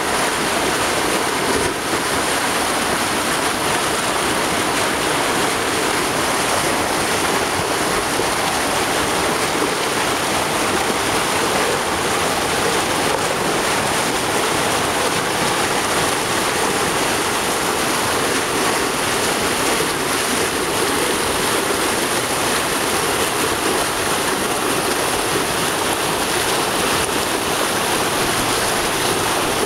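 Monsoon-swollen, muddy river in flood, rushing and churning against a stone embankment: a steady, loud noise of turbulent water.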